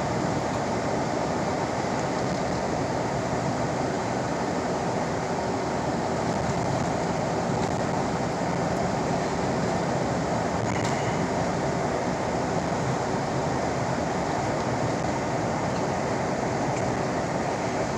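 Steady road and wind noise inside a moving car's cabin: an even, constant rush of tyres on the road and air against the body.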